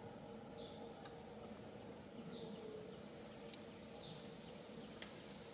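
A bird repeating a short, high, falling chirp, three times about a second and a half apart, over faint outdoor ambience with a steady low hum. One sharp click about five seconds in.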